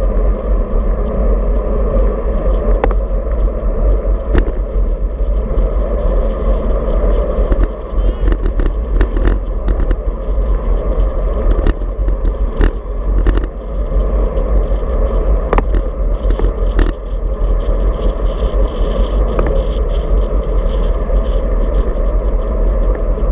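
Wind buffeting a handlebar-mounted action camera's microphone on a moving road bike, with a steady rush of tyre and road noise. Sharp clicks and rattles from the bike and mount come through now and then, most often in the middle stretch.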